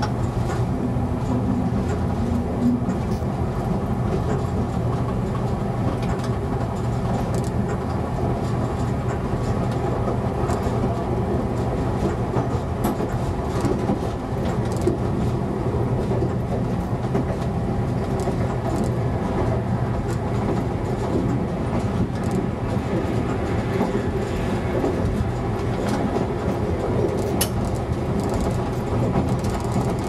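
ČD class 854 diesel railcar under way, heard from inside the driver's cab. A steady diesel engine drone sits over the rumble of wheels on rail, with scattered sharp clicks as the wheels cross rail joints and points.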